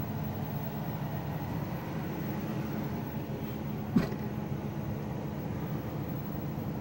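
Steady low mechanical hum with no changes, broken by a single sharp knock about four seconds in.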